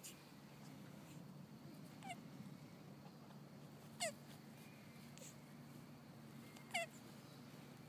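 Male Hermann's tortoise squeaking while mounted on a female during mating: three short calls, each sliding steeply down in pitch, the second and third loudest.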